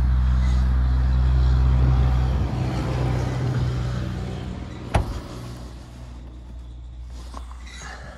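Electric tailgate motor of a 2016 Mercedes E-Class estate (S212) running as the tailgate powers open: a steady hum that fades away after about two and a half seconds. There is a single sharp click about five seconds in.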